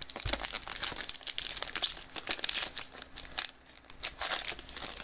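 Foil trading-card pack wrapper crinkling and crackling as it is handled and opened by hand.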